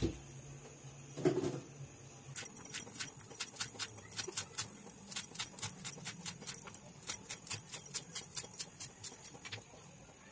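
Kitchen knife chopping fresh coriander on a wooden cutting board: a quick, even run of sharp taps lasting about seven seconds. It is preceded by a soft thump or two.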